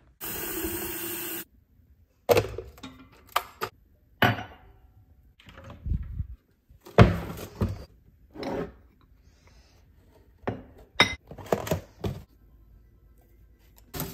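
Kitchen handling sounds: a steady rush of noise for about the first second and a half, then a string of separate thunks and clicks as an electric kettle's lid, a cupboard and a toaster are handled, with short silences between.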